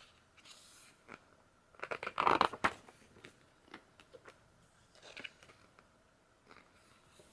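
Paper and plastic handling as a photobook's pages are turned: scattered soft clicks and rustles, with a louder rustle about two seconds in and a smaller one about five seconds in.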